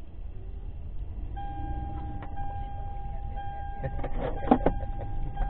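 Low, steady road and engine rumble inside a moving car's cabin. About a second and a half in, a steady high tone comes in and holds, and a few sharp clicks sound around four seconds in.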